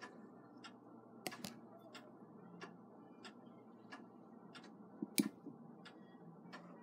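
Faint small metallic clicks and ticks, about two to three a second, from a Westclox clock movement being handled and worked on with a small screwdriver, with a sharper click about five seconds in.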